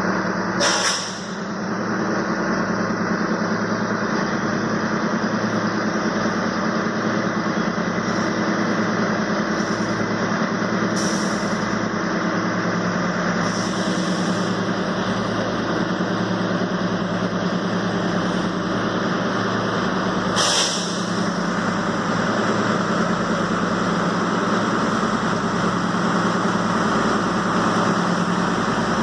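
Matheran narrow-gauge toy train's diesel locomotive engine running with a steady drone. A few brief sharp sounds come about a second in, twice around the middle and once about two-thirds of the way through.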